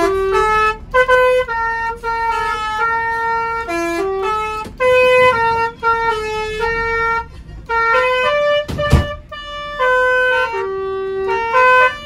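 Indonesian telolet bus horn, a multi-tone air horn, playing a quick tune of held notes that step up and down in pitch. A single sharp knock sounds about nine seconds in.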